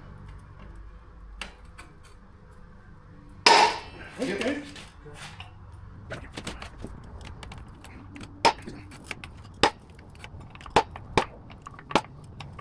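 Sharp metallic clinks and knocks of tools and parts against an outboard lower unit's gear case as the bearing carrier is being worked loose. The clinks come irregularly through the second half, after a brief loud burst of noise about three and a half seconds in.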